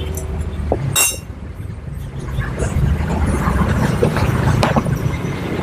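Steady low mechanical drone, like an engine running in the workshop, with one sharp metal click about a second in.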